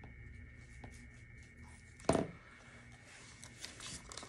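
Paper envelope pages of a cash-budgeting binder being turned and handled, with one short, loud knock about two seconds in and light rustling and clicks near the end.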